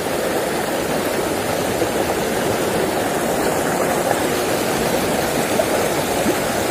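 Shallow rocky river flowing steadily over a riffle between boulders, a constant, even rush of water.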